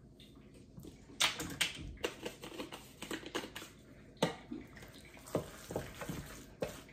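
A spice jar of garlic powder being shaken and tapped over a bowl, then a wooden spoon stirring mashed potato and flaked cod in a stainless steel bowl. The result is a run of irregular taps, soft knocks and squishing, with a sharp click about four seconds in.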